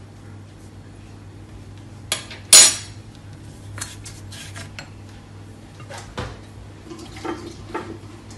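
Metal spoon clinking and scraping against a small ceramic bowl while stirring a sauce, with a loud double clink about two seconds in and lighter taps after, over a steady low hum.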